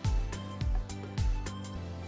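Background music with a steady beat, about two low drum hits a second over held notes.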